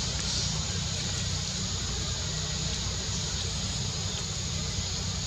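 Steady outdoor background noise: a low hum with an even hiss above it, and no distinct calls or knocks.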